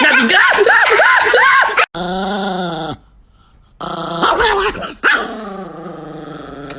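Chihuahua growling and yapping: a quick run of rising-and-falling yips, then longer drawn-out growling cries with short breaks between them.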